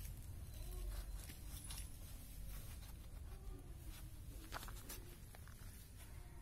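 Faint tearing, scraping and small clicks as a goat's hide is pulled and knifed away from the carcass, over a steady low background rumble.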